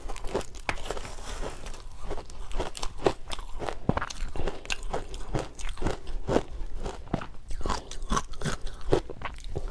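Close-miked crunching of powdery shaved ice dusted with matcha powder: a metal spoon scraping and digging into the frozen mound, and mouthfuls being chewed, in many irregular crisp crunches.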